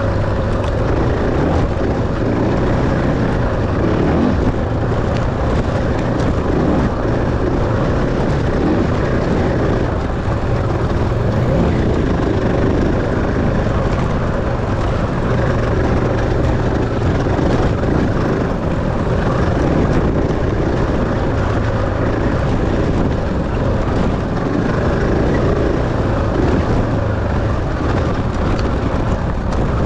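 Dirt bike engine running under load while being ridden, a loud, steady noise without breaks.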